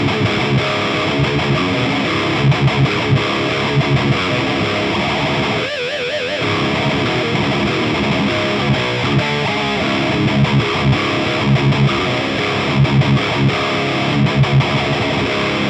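Heavily distorted electric guitar playing metal riffs through an Orange Rockerverb 100 MKIII's dirty channel, boosted by a Maxon OD808 overdrive set with no drive and balance and tone in the middle. Repeated low notes, a held note with wide vibrato about six seconds in, and the playing stops abruptly at the end.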